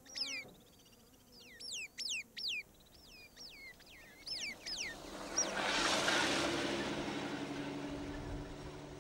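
Black-crowned sparrow-lark at its nest: a run of sharp, high chirps, each falling quickly in pitch, in ones and twos. Then a short-wheelbase Toyota Land Cruiser drives past: a rush of engine and tyre noise with a steady low hum swells, loudest a little past halfway, and slowly fades.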